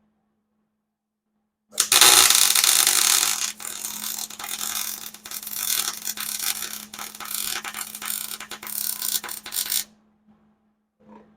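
Wire-feed (MIG) welding on steel: a loud, steady crackling sizzle that starts abruptly about two seconds in and cuts off abruptly about eight seconds later as the arc stops.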